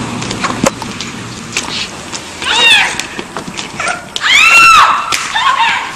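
A cat screeching in pain while a deer stomps on it: three drawn-out yowls, each rising and then falling in pitch, the longest and loudest about four seconds in.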